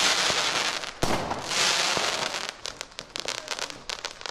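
A firework bursting: hissing, a sharp bang about a second in, then a dense run of crackles that thins out and fades near the end.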